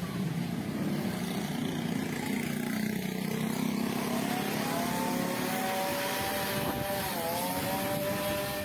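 An engine running over a steady rush of wind or outdoor noise. About four seconds in its pitch rises and then holds steady, with a brief dip near the end.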